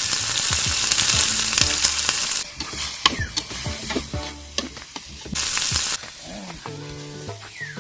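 Chicken pieces sizzling in a frying pan while being stirred, with a utensil clicking and scraping against the pan. The sizzle comes in loud surges, strongest in the first couple of seconds and again briefly past the middle.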